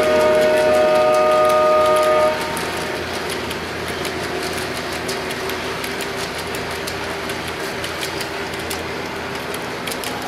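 Lionel model train: its electronic horn sounds a chord of several tones that stops about two seconds in, then the cars roll past with a steady rumble and clicking of metal wheels over the track joints.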